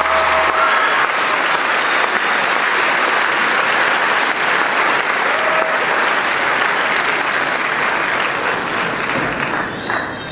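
Audience applause with a few shouts in an auditorium, starting as the last low note of the accompaniment dies away in the first second, and beginning to fade near the end.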